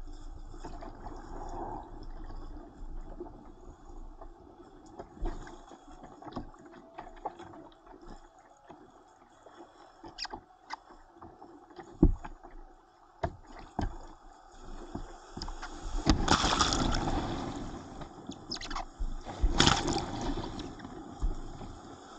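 Whitewater rushing and splashing around a kayak's bow, picked up by a camera on the deck. A steady background noise at first gives way to scattered drips and knocks, then two loud surges of breaking water in the second half as the boat hits the rapids.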